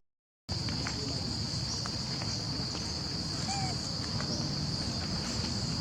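Steady high-pitched drone of insects such as cicadas or crickets, with a faint low rumble and a few soft clicks under it. The sound drops out entirely for about half a second at the start.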